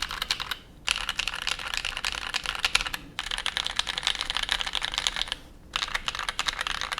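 Fast typing on a custom mechanical keyboard with lubed NovelKeys Cream linear switches on a brass plate: dense runs of keystroke clacks. The typing breaks off briefly three times, under a second each.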